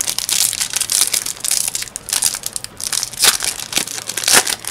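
Foil wrapper of a Yu-Gi-Oh booster pack crinkling and crackling as it is handled and torn open by hand, with two sharper, louder crackles in the last second and a half.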